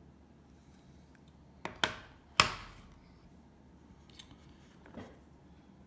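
Hard plastic NGC coin slabs clacking against each other and the wooden table as one is set down and another picked up: a quick pair of clicks about two seconds in, the loudest clack just after, then a couple of softer taps later.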